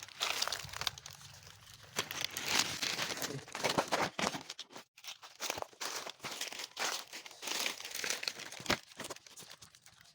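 Irregular rustling and crinkling of galangal stalks and leaves being handled and bound, with short sharp clicks among the rustles.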